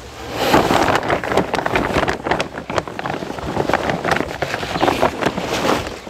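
Chopped maize silage rustling and crunching as it is scooped into a basin: an irregular run of scrapes and crackles.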